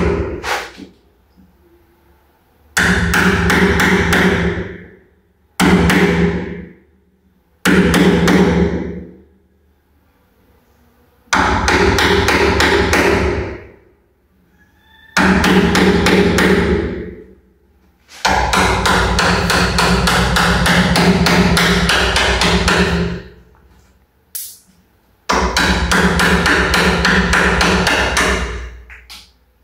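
A hand-held power tool with a rapid hammering action, run in about seven bursts of one to five seconds with pauses between, each trailing off at the end.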